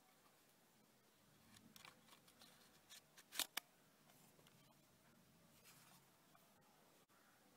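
Hands handling the plastic case of a National Panasonic RQ-218 portable cassette recorder: faint rustling and small ticks, with two sharp clicks close together about three and a half seconds in.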